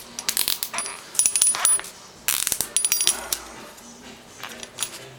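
Plastic cable ties clicking and clattering as they are handled, in two quick runs of sharp ticks over the first three seconds or so, then a few scattered ticks.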